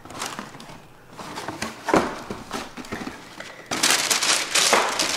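A cardboard shoebox being handled and opened: a knock about two seconds in, then a loud burst of paper crinkling and rustling near the end as the sneakers are taken out.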